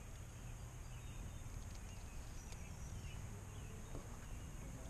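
Quiet outdoor ambience: a faint low rumble with a few faint, distant bird chirps scattered through it.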